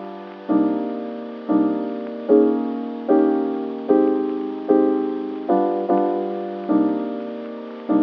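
Background music: piano chords, each struck and left to fade, a little over one a second.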